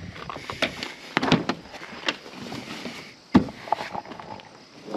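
Knocks, clicks and scraping as a carpet pad and kayak are handled on top of a van's roof, with one sharp knock a little over three seconds in.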